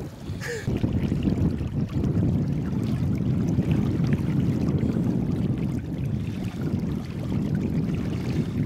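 Shallow river water flowing over rocks around a fish held in the current, a steady low rush.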